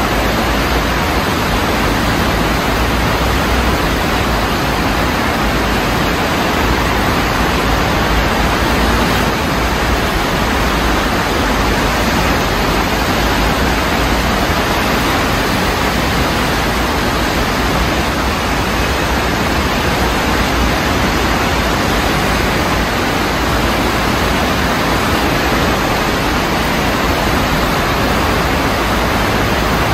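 Steady rush of a flooded stream, fast turbulent floodwater from heavy rain running bank-full through its channel.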